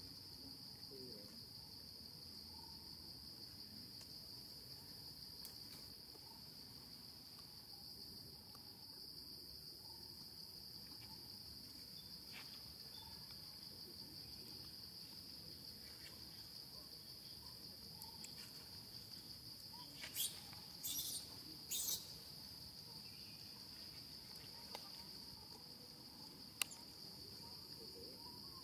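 Steady high-pitched insect chorus of crickets, a continuous drone. Three brief noises come about two-thirds of the way in, and a single sharp click comes near the end.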